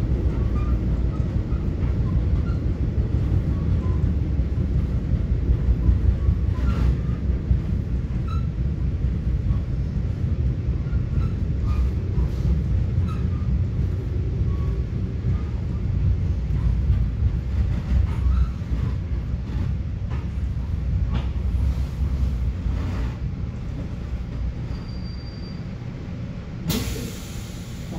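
Metra commuter train heard from inside the coach: a steady low rumble of wheels and running gear on the rails with scattered clicks and creaks, easing off as the train slows into the station. A brief hiss comes near the end.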